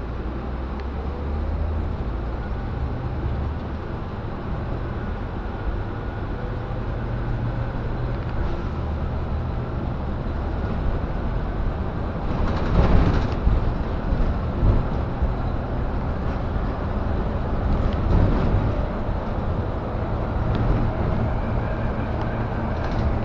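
City transit bus heard from inside the passenger cabin: a steady low engine and road rumble, with a brief louder rough patch about halfway through.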